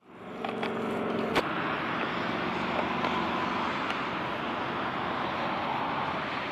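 Boeing 727 Super 27's jet engines running at taxi power: a steady rushing rumble that fades in at the start. There is a single sharp click a little over a second in.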